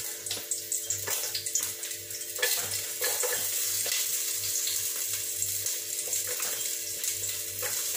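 Garlic and onion sizzling and crackling in hot oil as they are dropped into the pot, a steady frying hiss.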